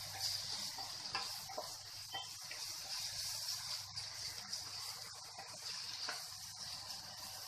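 Chopped vegetables sizzling as they fry lightly in oil in a nonstick kadai, a steady hiss, with a spatula stirring and scraping against the pan now and then.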